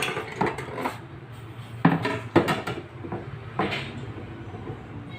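Metal parts and tools clinking and knocking: several sharp strikes at uneven intervals over a steady low hum.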